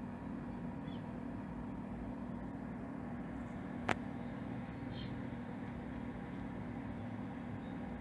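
LM386 audio amplifier putting out a steady hum and hiss through its speaker with no signal at its input: the ground-loop noise this chip is prone to. A single sharp click comes about four seconds in.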